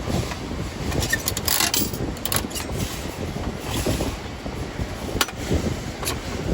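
Steady arcade room din with several sharp clicks and knocks from a prize machine being played.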